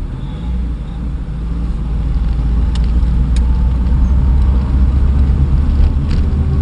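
Motor vehicle running: a low, steady rumble of engine and road noise that grows louder about two seconds in, with a few faint clicks.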